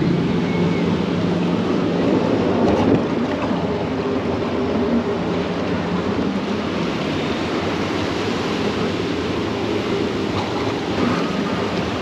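Water rushing and splashing steadily along the channel of a river rapids ride, heard from inside the floating round boat. A low hum under it fades out within the first few seconds.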